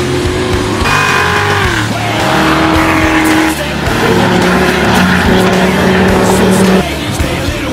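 Race car engines running hard on a track. One drops in pitch about two seconds in as it lifts off, and another holds a steady high note that cuts off suddenly near the end. Music plays underneath.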